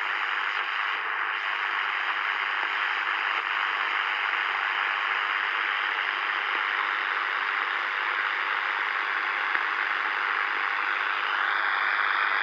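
Shortwave static hissing steadily from the speaker of a Sony ICF-SW10 analog receiver, tuned off any station on the shortwave band. A faint steady tone comes in near the end.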